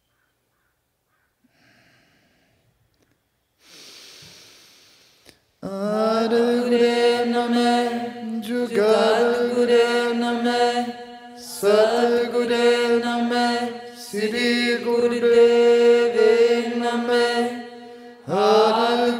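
Near silence at first, then a drawn breath and two voices, a man's and a woman's, chanting a Kundalini yoga mantra in long held phrases that start about every three seconds.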